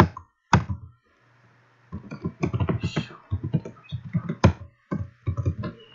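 A man's voice talking indistinctly in short muttered bursts over a faint steady low hum.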